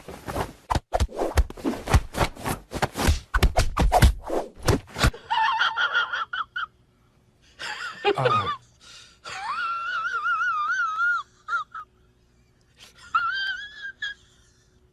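A rapid run of sharp clicks and scrapes for about five seconds, then a cat meowing in several long, high, wavering calls with short pauses between them.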